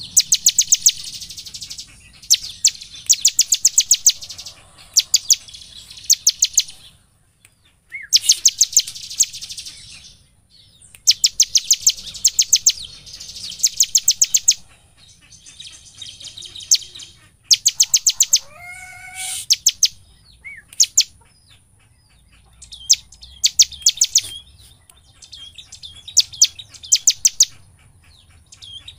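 Bar-winged prinia (ciblek) in full song: repeated bursts of rapid, sharp, high notes, each burst lasting a second or two with short pauses between. One lower, sliding call comes about two-thirds of the way through.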